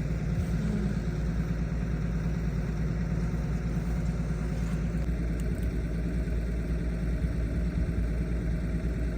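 Machine engine running steadily at idle, a low even hum with no change in speed.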